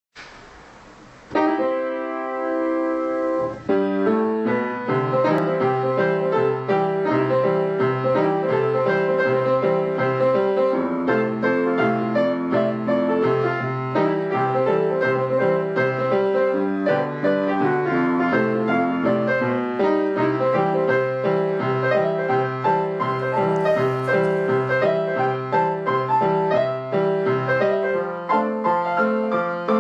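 Piano music: after a faint hiss, a chord is struck about a second in and held, then a steady, evenly paced tune starts over a bass line that alternates between low notes.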